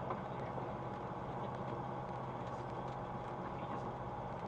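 Flight Design CTSW's Rotax 912 engine and propeller running at low taxi power, a steady drone picked up by the cockpit audio.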